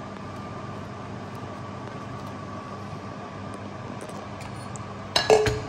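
Steady machine hum in a kitchen, with a faint high tone held over it. About five seconds in comes a brief clatter of dishware, a few sharp knocks close together.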